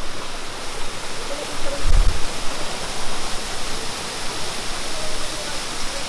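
A small waterfall pouring down a rock face and splashing onto boulders into a shallow pool: a steady, dense rush of falling water. A brief dull low thump about two seconds in.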